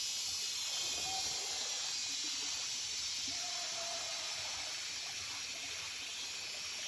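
Steady rush of running water, like a stream flowing.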